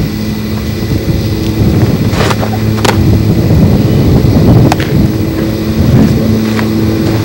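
Wind buffeting the camcorder microphone in a loud, steady low rumble, with a few sharp knocks, the crispest about three seconds in.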